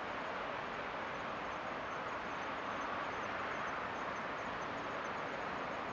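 Steady outdoor rushing ambience, with a faint high-pitched chirping repeating a few times a second over it.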